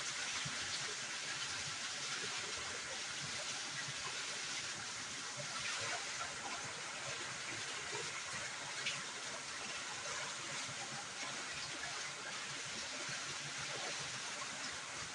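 Water pouring steadily from a PVC pipe through a mesh filter bag into a water-filled concrete sump, a continuous rushing flow.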